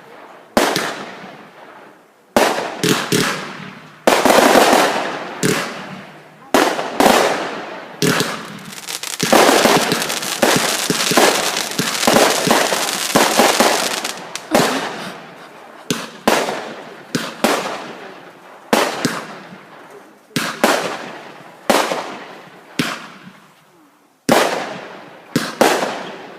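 Fireworks going off: a string of sharp bangs a second or two apart, each echoing away, with a dense run of rapid crackling bangs in the middle.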